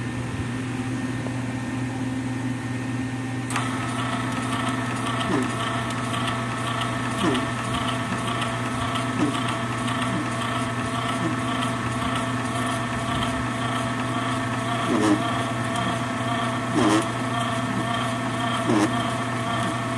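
Lincoln Pro Mig 140 MIG welder humming, then about three and a half seconds in its wire-feed motor starts with a steady whine and keeps running as the gun trigger is held to feed a new spool of wire through the gun. A faint tick repeats about every two seconds.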